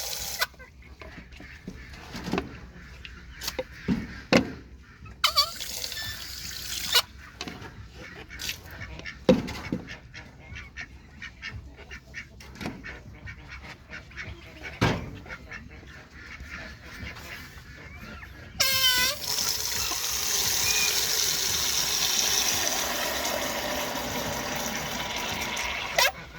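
Farm waterfowl honking now and then. About two-thirds of the way in, water from a garden hose starts suddenly and runs with a steady hiss until just before the end.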